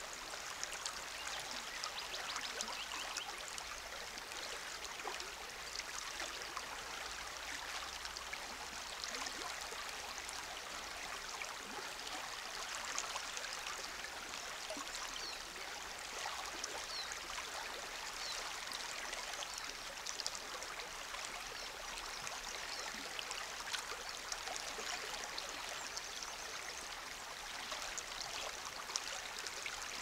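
Small river flowing: a steady rush of water with fine trickling and splashing.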